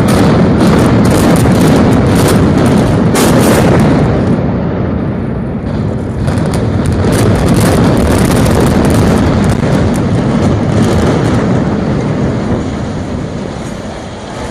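Building demolition by implosion: a rapid series of sharp explosive-charge cracks over the first few seconds, over a long, loud rumble of the structure collapsing that eases off slightly near the end.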